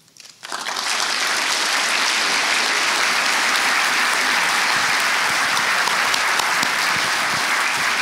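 Large audience applauding, building over the first second and then holding steady.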